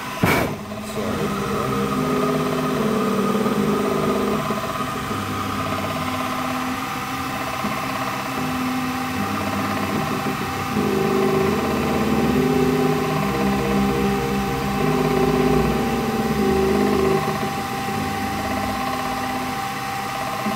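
WMD25 bench milling machine converted to CNC, its spindle running and an end mill cutting a contour in a metal plate, with a steady high whine throughout. Under it the axis motors hum in tones that hold, then shift in steps as the table moves along the cut. A sharp click about a quarter second in.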